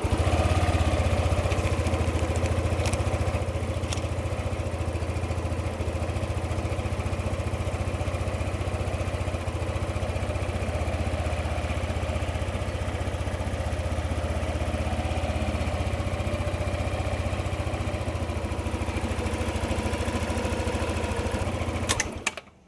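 Yamaha NMAX 155 V2 scooter's single-cylinder engine idling steadily, with a new manual idle air control valve fitted, on an engine whose crankshaft position sensor is faulty. The sound cuts off abruptly near the end.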